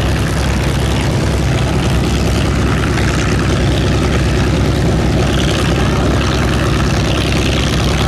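Propeller aircraft piston engine running steadily at close range: a deep, even drone that holds the same level throughout.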